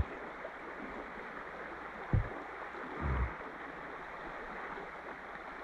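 Stream water running steadily over a shallow bed, with two soft low thumps about two and three seconds in.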